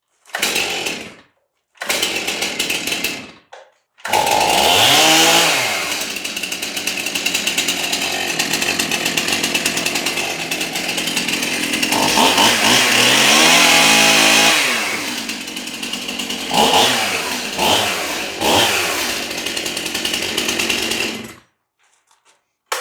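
Chainsaw: two short bursts, then it runs continuously from about four seconds in, revving up and down several times as it cuts a small piece of wood, and stops shortly before the end.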